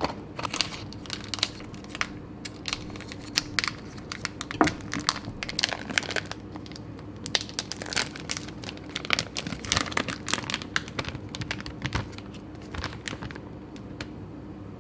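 Thin plastic bag crinkling and rustling in irregular crackles as a soft block of surimi (fish paste) is peeled and squeezed out of it by hand.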